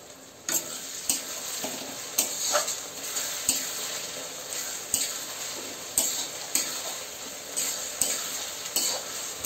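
Onions and tomatoes sizzling in mustard oil in a kadai. A spatula scrapes and knocks against the pan in repeated strokes as they are stirred, and the sizzle swells about half a second in.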